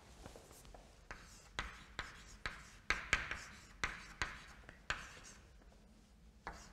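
Chalk writing on a blackboard: a run of short taps and scratchy strokes as letters are chalked, quieter near the end.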